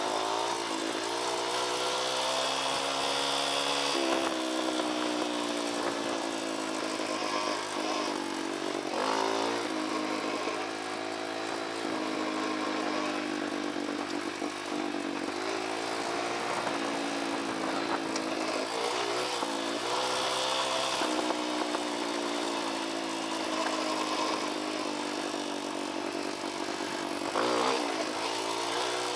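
Kawasaki KLX dirt bike's single-cylinder four-stroke engine running under way, its pitch rising and falling with the throttle.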